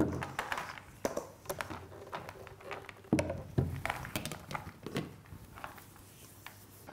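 A metal spoon scraping and tapping against a stainless steel bowl as a sticky grain-and-nut granola mixture is spooned out onto a plastic dehydrator sheet. There are irregular clicks throughout, with a few heavier knocks about three seconds in.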